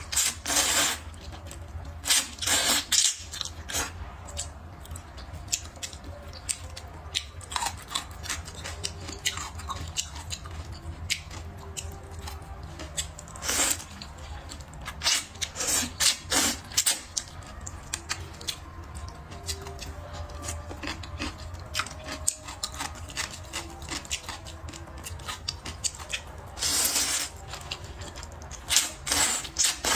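Close-up eating sounds of a person slurping flat wheat noodles, with loud slurps of half a second to a second every few seconds and steady wet chewing and mouth clicks between them.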